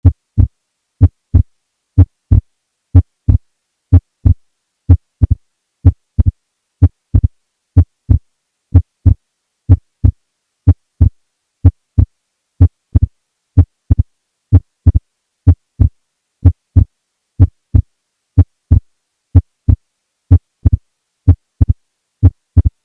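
Heart sounds in a steady lub-dub at about one beat a second, the second sound split into two close clicks at some beats. This is a wide split of S2, the sign of conditions that delay right ventricular contraction, such as right bundle branch block or pulmonary hypertension.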